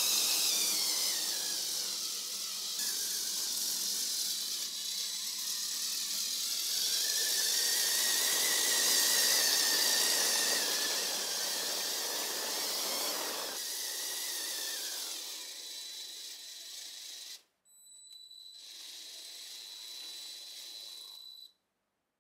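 Motorized Lego Technic train running on plastic track: a steady hissing whir from its motors, gears and wheels, with a squeal that slides down in pitch and then rises and falls again. It cuts off suddenly near the end, followed by a quieter stretch of running with a steady high whine.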